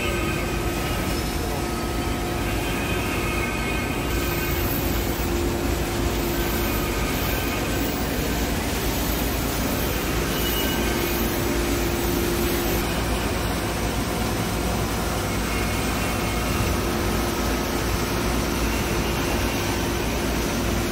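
Chocolate and sugar coating and polishing machinery running: a steady, even mechanical noise with a constant hum.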